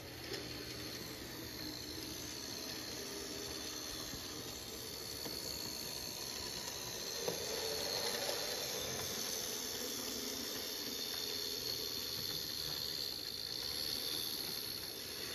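Märklin Z scale model train, a streamlined BR 05 locomotive with express coaches, running along the track: a steady high-pitched whine and hiss from the small motor and rolling wheels, louder about halfway through as the locomotive passes close.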